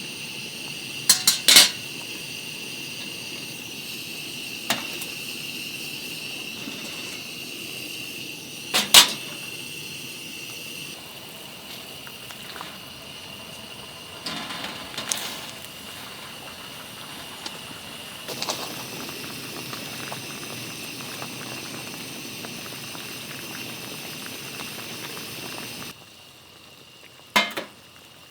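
Metal cooking utensils and dishes clinking, a handful of sharp separate clinks spread over the stretch, against a steady background hiss that drops away suddenly near the end.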